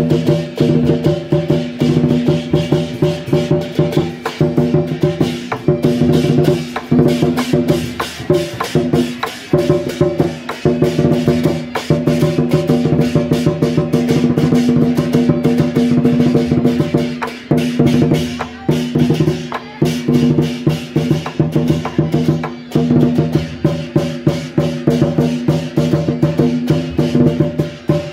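Traditional Taiwanese temple procession music: sustained reed-horn tones over a fast, steady beat of drums and woodblock clicks.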